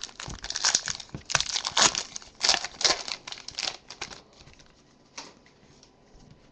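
Foil trading-card pack being torn open and its wrapper crinkled: dense crackling and tearing for about four seconds, then a few faint rustles.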